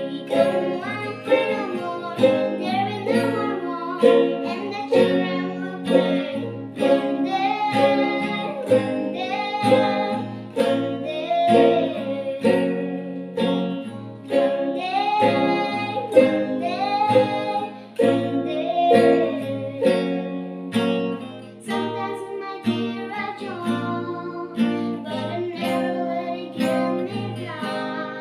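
Acoustic guitar and ukulele played together in steady chords while a young girl sings the melody.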